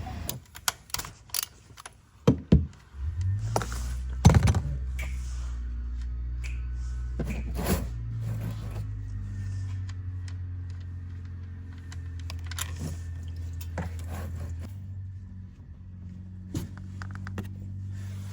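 Knocks, clicks and scrapes of hand tools being handled while working under a car for an oil change, over a steady low hum.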